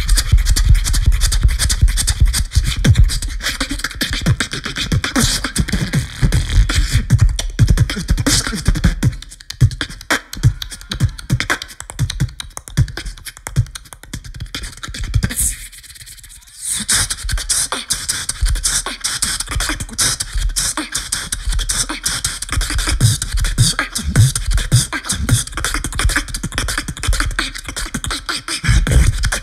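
Live beatboxing through a handheld microphone and PA: rapid vocal kick drums with heavy bass, snares, clicks and hi-hat hisses. It thins out partway through and stops briefly about sixteen seconds in, then dense beatboxing resumes.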